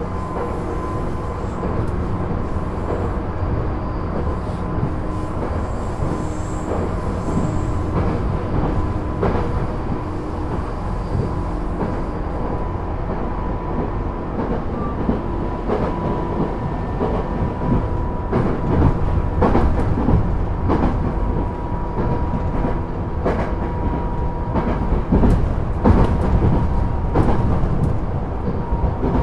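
Inside a JR 205 series (600 subseries) electric commuter train running between stations: a steady rumble of wheels on rail with a thin whine. Wheels click over rail joints, more often in the second half.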